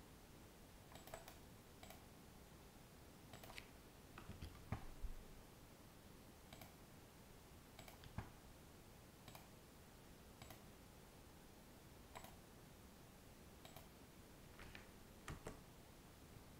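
Faint, irregular clicks of a computer mouse and keyboard as a CAD drawing is worked on, about a dozen spread out with a quick cluster about four to five seconds in, over quiet room hiss.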